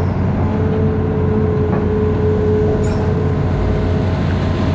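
Amphibious excavator's engine running steadily, with a thin steady whine over it from about half a second in until about four seconds, and one short click about three seconds in.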